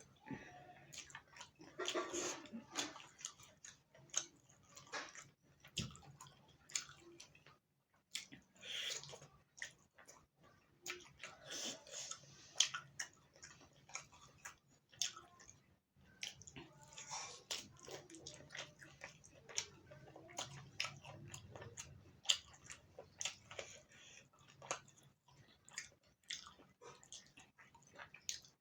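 Close-miked chewing and wet mouth sounds of a person eating, with many short smacks and clicks.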